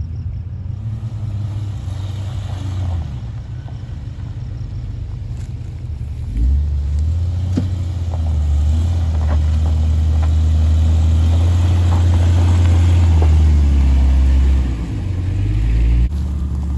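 Jeep Cherokee engine pulling hard up a steep sandy hill climb. Its low drone grows much louder about six seconds in as the Jeep climbs closer, eases off briefly near the end, then swells again as it passes close by.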